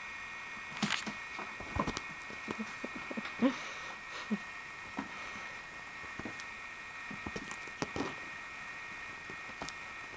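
Russian Blue kittens scampering and pouncing on a hardwood floor: irregular light taps and thumps of paws on the boards, the loudest about three and a half seconds in.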